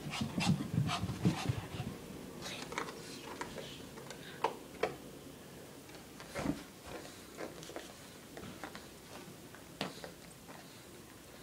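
A Shih Tzu moving on carpet and nosing at a fleece blanket: scattered soft thumps, rustles and short clicks, with a denser cluster of low thumps in the first second or so.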